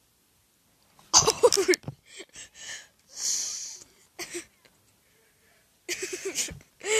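Audio from quick-cut meme clips, all human voice sounds: a loud shout about a second in, short breathy hissing noises in the middle, and a man yelling near the end.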